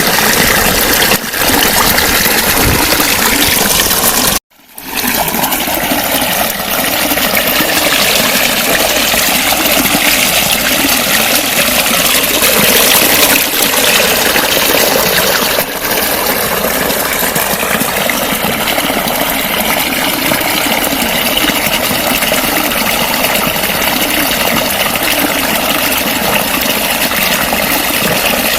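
Water gurgling and splashing steadily. The sound drops out for a moment about four and a half seconds in, then resumes.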